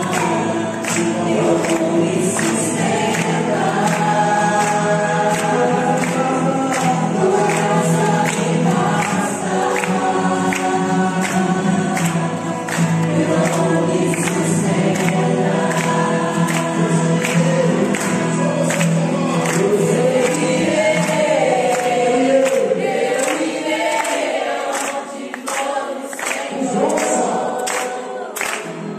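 A group of people singing a worship song together, with rhythmic hand-clapping at about two claps a second keeping the beat.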